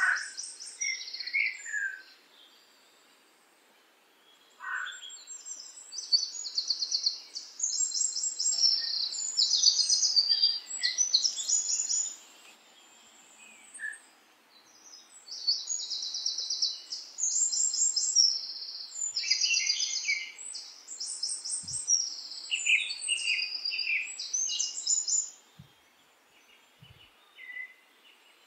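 Small songbirds singing: high-pitched chirps and rapid trills in repeated bouts, with short pauses between them.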